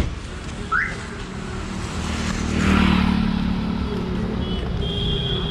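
Night street traffic: a car drives past close by, its engine and tyre noise swelling about halfway through and then easing off. A thin steady high tone comes in near the end.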